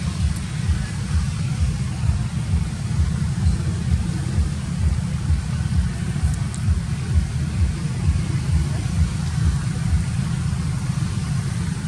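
A steady, loud low rumble with an uneven flutter, all in the deep bass.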